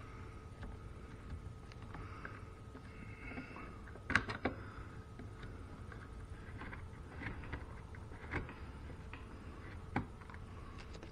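Quiet hand work fitting screws into a plastic lip spoiler: a few sharp clicks and taps, the loudest about four seconds in and others near the end, over a faint steady room hum.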